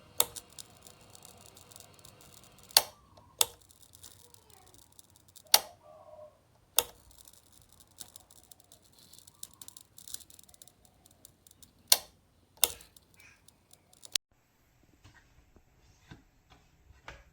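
Dimmer light switch being clicked on and off repeatedly: about eight sharp clicks at irregular intervals.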